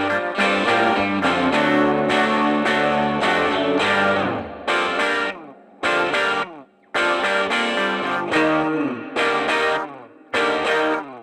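Background music: electric guitar with effects and distortion, strummed chords broken by short pauses.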